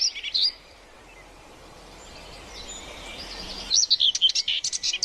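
Small birds chirping in quick, high calls that stop about half a second in and start again near the end, with a faint steady hiss in between.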